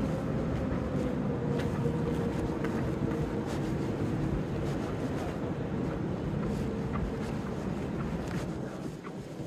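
Steady low mechanical hum of city ambience, with a few faint tones running through it, easing off near the end.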